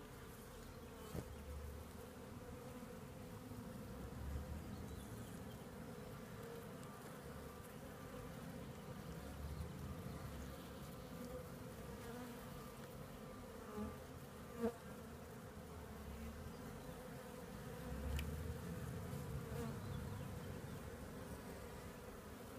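Many honeybees buzzing steadily, a continuous hum from bees crowding the open comb, with a few faint taps about a second in and again around the middle.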